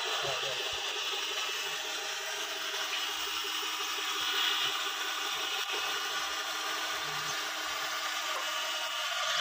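Small electric motor running with a steady whine, driving the hydraulic tipping cylinder of a model tractor trolley as the tipper bed moves.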